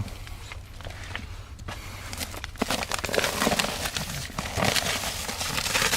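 Irregular scraping, rustling and small knocks of someone moving about and handling things, over a steady low hum.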